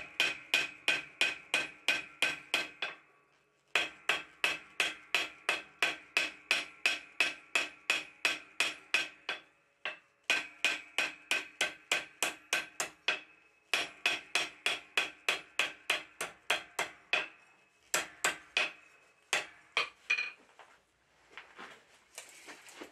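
Blacksmith's hand hammer forging a red-hot steel bar on an anvil: quick runs of ringing blows, about four a second, broken by short pauses. Near the end the blows become fewer and further apart.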